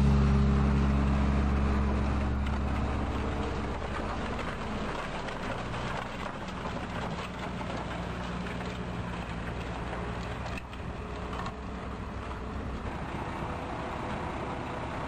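Valmet 8450 tractor running steadily under ploughing load, its engine noise left after the last chord of a song dies away over the first few seconds.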